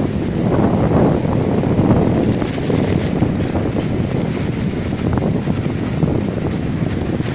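Wind buffeting the microphone: a steady, loud, low rushing rumble, over the flow of the wastewater stream.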